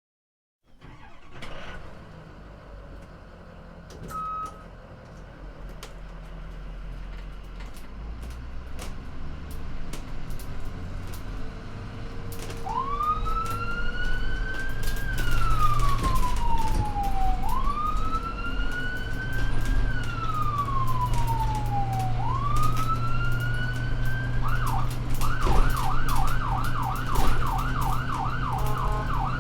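Ambulance driving with its engine running and growing louder. About twelve seconds in its siren starts a slow wail that rises quickly and falls slowly, three times over. Near the end it switches to a fast yelp, about four or five sweeps a second.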